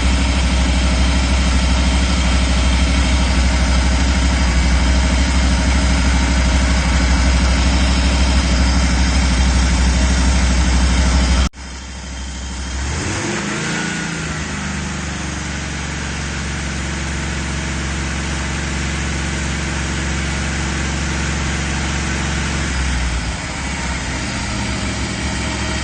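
1985 Chevy van's engine idling steadily while its cooling system is bled of air after a heater core replacement. About halfway through the sound cuts off abruptly, then the engine rises briefly in pitch, falls back and idles on.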